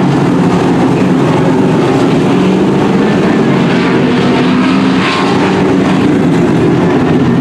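Engines of several dirt-track racing pickup trucks running at speed around the oval, a loud steady drone of overlapping engines as the pack passes.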